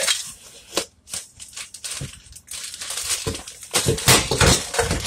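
Plastic freezer bag crinkling and crackling as it is peeled off a block of frozen chicken stock, sparse at first and much louder and denser near the end.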